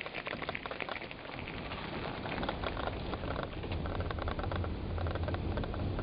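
Bicycle rolling over a wooden plank bridge deck: a dense, irregular clatter and rattle of the planks and bike, with a low rumble that grows louder from about halfway.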